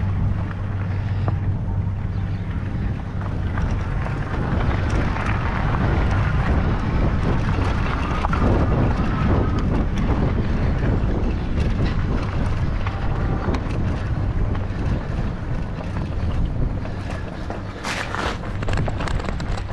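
A small vehicle driving over a dirt farm lane, with a steady low hum and wind on the microphone. A few sharp clicks come near the end as it reaches the shop.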